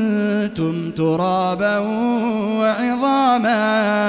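Male voice reciting the Quran in a slow, melodic chant, drawing out long ornamented notes whose pitch rises and falls. It breaks briefly twice within the first second.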